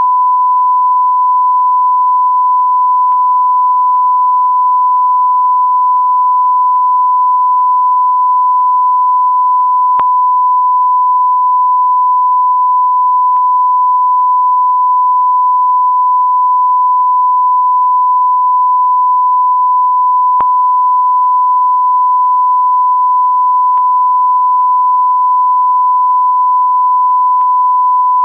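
1 kHz reference test tone of a bars-and-tone signal: a single pure, steady beep held unbroken at a loud level.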